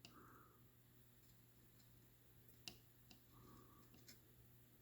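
Near silence: a faint steady low hum with a few faint ticks, the clearest about two and a half seconds in.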